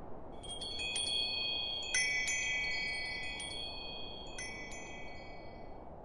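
Chimes tinkling: a cluster of high, clear metallic tones struck one after another from about half a second in, a louder cluster about two seconds in and a few more later, ringing out by near the end. A steady low hiss runs underneath.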